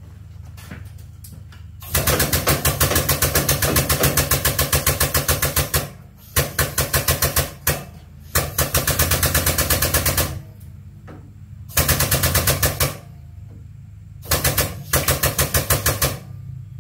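Air-over-hydraulic ram on an engine hoist pumping in rapid, machine-gun-like pulses as it lifts a pickup truck bed. It comes in five bursts, the longest about four seconds, with short pauses between them.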